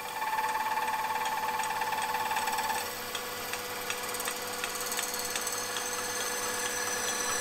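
Milling machine running a slitting saw through a bronze bar, cutting a slot. A high squeal from the cut stops about three seconds in, leaving a steady machine tone with faint regular ticking about three times a second.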